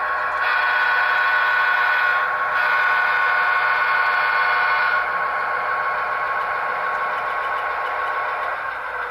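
Model diesel horn from a Soundtraxx Tsunami sound decoder in an HO-scale GP15 locomotive, two blasts of about two seconds each with a short break between, heard through the model's small speaker. Under the horn the decoder's EMD 645 non-turbo diesel engine sound runs steadily.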